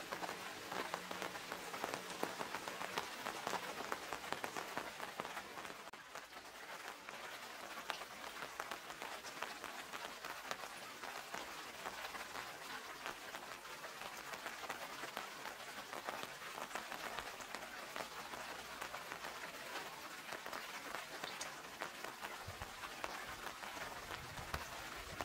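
Steady rain falling, with many small drops ticking throughout.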